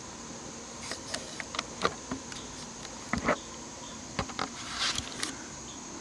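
Steady high-pitched chirring of crickets and other insects, with scattered short clicks and knocks, one with a brief squeak, about a second in and toward the end.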